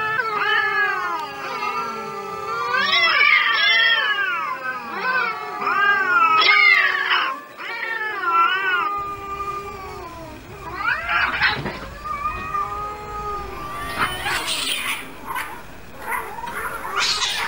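Cats fighting, caterwauling: several long, wavering yowls overlap for the first seven seconds or so. Later come shorter, harsher squalls, bunched near the end as the cats grapple.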